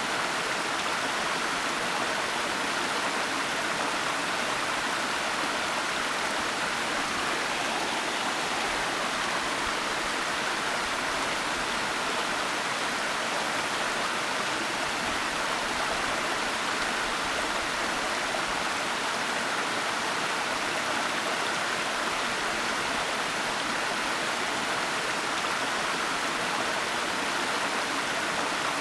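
Waterfall: water rushing in a steady, even hiss with no breaks or changes.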